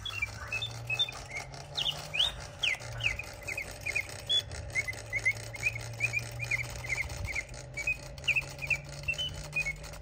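Late-1800s French clockwork singing-bird automaton in a brass cage whistling a rapid run of short chirps, about three a second, many sliding up or down in pitch. Under the chirps runs a steady low hum.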